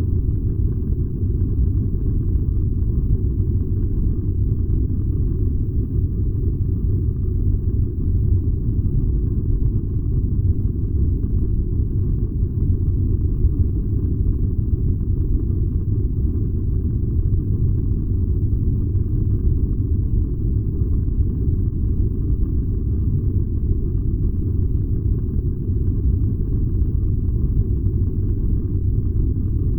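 Furnace running with a steady, unbroken low rumble.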